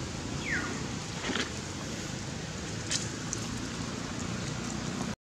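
Steady outdoor background hiss with a short, high, falling chirp about half a second in and a few faint clicks.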